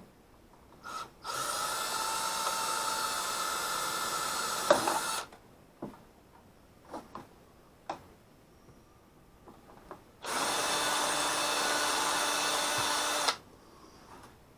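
Ryobi power drill running in two steady bursts, about four seconds and then about three seconds long, drilling a hole. A short blip of the trigger comes just before the first burst, and a few light handling clicks fall between the two.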